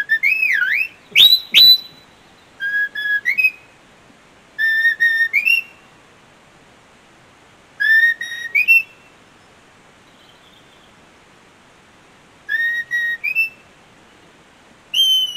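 A sheepdog handler's whistle commands to a working border collie: about six short calls a few seconds apart, most made of a couple of quick level notes followed by an upward slide, with a wavering note and two sharp rising notes at the start. They are the dog's individual command to go out to the right around the sheep.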